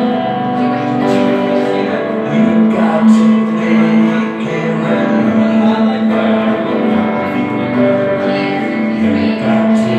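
Live music from a plucked string instrument played steadily, with held notes throughout.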